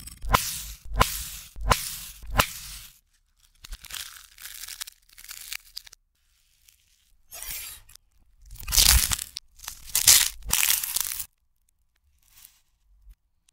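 Sounds played backwards: a knife scraping the crisp toasted face of a burger bun in four sharp strokes, then dry papery onion skin being peeled and torn off in louder rasping bursts.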